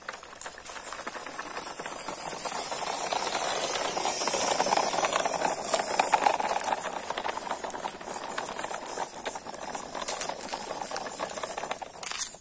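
Radio-controlled toy truck driving over grooved concrete: its small electric motor and gearbox whirring and its plastic chassis and wheels rattling. The sound is loudest about halfway through as the truck passes close.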